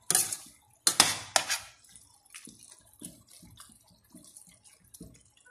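A spoon stirring a thick tomato-sauce stew of chicken, liver and vegetables in a stainless steel pot: a few loud scrapes and knocks on the pot in the first second and a half, then soft, irregular wet plops from the stew.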